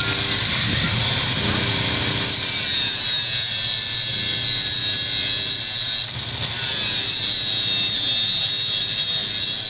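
Handheld angle grinder running, its abrasive disc cutting through strands of steel wire rope to trim the ends of a wire-rope splice. The high whine turns into a harsher grinding about two seconds in as the disc bites into the steel.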